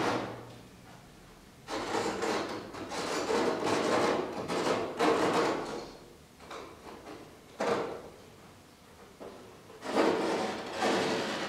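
Canvas tearing along a cut circle as it is pulled and slit away from its backing, in long ripping strokes: one lasting about four seconds from about two seconds in, a short one near eight seconds, and another starting near ten seconds.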